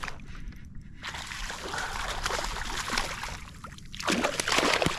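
A hooked speckled trout thrashing and splashing at the surface beside a kayak, in a rapid irregular patter of splashes that is loudest near the end.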